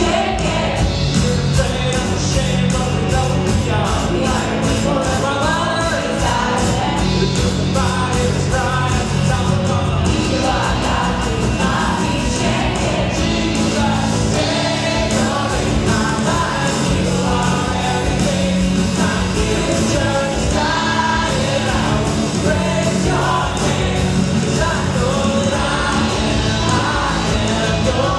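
Live worship band playing a rock-style worship song: lead and backing vocals singing over an electronic drum kit, guitars and keyboard, loud and steady with no break.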